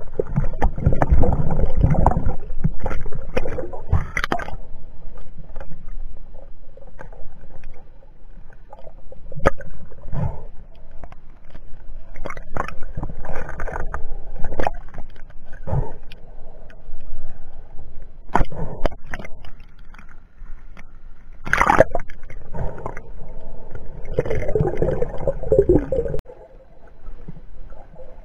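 Muffled underwater sound picked up through a submerged camera: water swirling and gurgling around the diver, with scattered sharp clicks and knocks.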